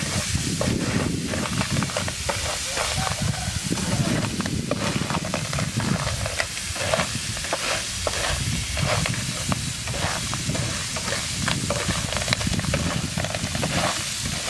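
Small shellfish in their shells being stir-fried with a spatula in a frying pan: the shells clatter and scrape against the pan in quick, irregular clicks over a steady sizzle, with a low rumble underneath.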